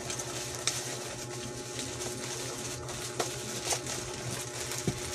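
Hands unwrapping a tightly wrapped plastic package: a few faint crinkles and clicks of the plastic over a steady background hiss and hum.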